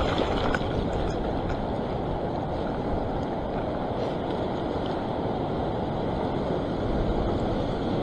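Ocean swell surging and washing over a rock platform, with steady wind noise on the microphone.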